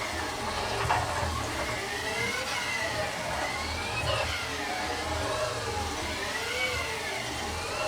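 Axis servo drives of an Omni Turn GT-75 CNC gang tool lathe moving the X and Z slides back and forth through their full travel. The result is a whine that rises and falls in pitch about once a second over a steady low hum, with a couple of light clicks.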